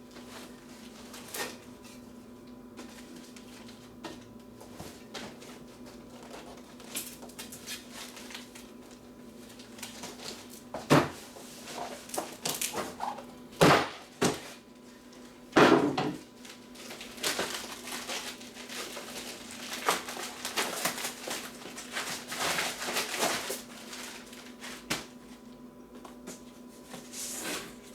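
Scattered knocks and clicks of objects being handled and set down, with a stretch of rustling in the second half, over a faint steady hum.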